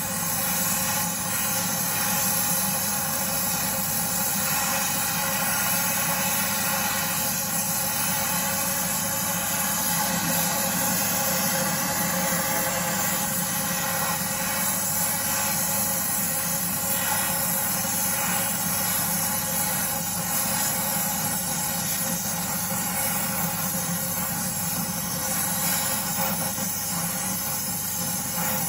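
Oxy-acetylene torch hissing steadily as it heats a horseshoe for Drill Tec traction, over a steady motor drone of constant pitch.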